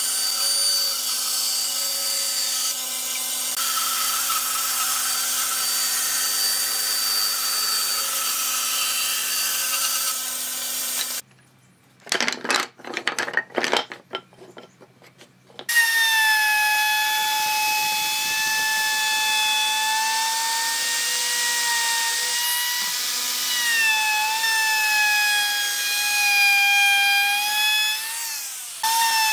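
Band saw running and cutting through a pine board, a steady machine sound, cut off abruptly after about eleven seconds. A few sharp knocks of pine strips being laid down follow, then a handheld electric router starts its high whine, its pitch wavering and dipping a few times as it cuts along a pine strip.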